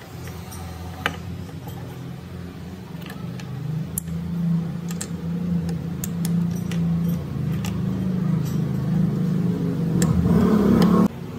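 A machine's motor running with a steady low hum and scattered clicks, slowly getting louder, then cutting off abruptly near the end.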